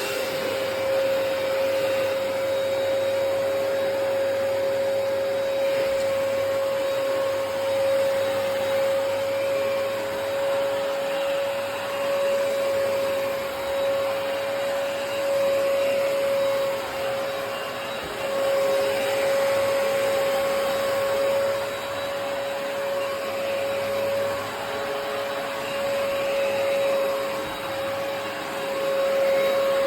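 Hoover PowerDash Pet+ compact carpet cleaner running, its motor giving a steady whine over a continuous rush of air.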